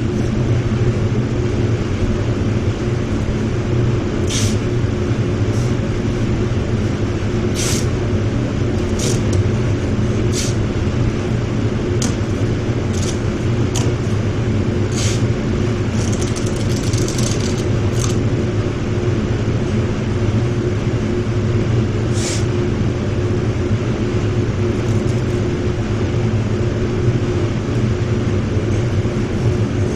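Spray booth ventilation running with a steady hum. Over it come about a dozen short rips of masking tape being pulled off the roll, most in the first half and one more later on.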